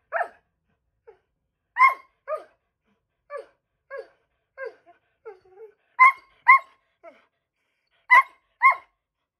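A dog barking to beg for food, in short barks that fall in pitch. The loudest come in quick pairs, with a run of quieter barks and one lower, drawn-out call in the middle.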